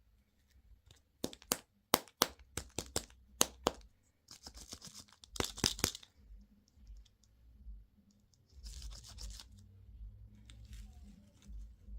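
Plastic candy packaging being handled and opened: a quick run of sharp clicks and snaps, then crinkling and tearing of a wrapper, with another short rustle a few seconds later.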